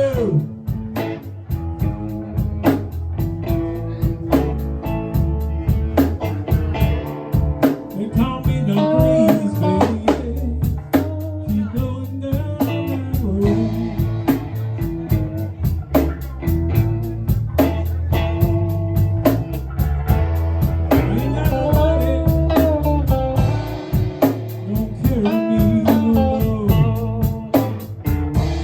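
A live blues-rock band playing an instrumental passage: electric guitar lead with bent notes over steady bass and drums.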